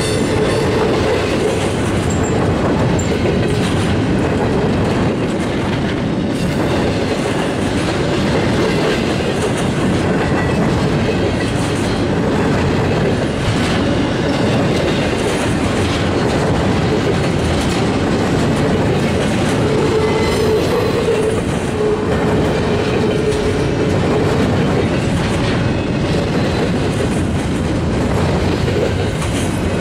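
Empty double-stack well cars of a Norfolk Southern freight train rolling past close by: a steady rumble of steel wheels with clickety-clack over the rail joints. A faint ringing wheel squeal comes in briefly just after the start and again about two-thirds of the way through.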